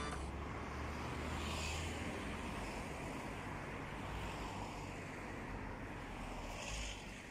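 Outdoor street ambience: a steady low rumble of wind on the microphone and distant traffic, with two brief swells of hiss, about a second and a half in and near the end.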